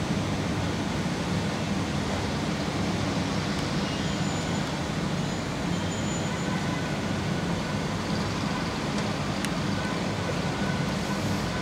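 A steady, even low rumble of background noise, with no distinct events standing out.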